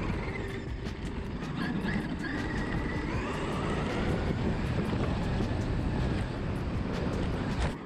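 Traxxas X-Maxx electric RC monster truck heard from a camera mounted on it: the brushless motor's whine rises and falls with the throttle over a rumble of tyres and suspension bouncing across rough grass, with wind on the microphone.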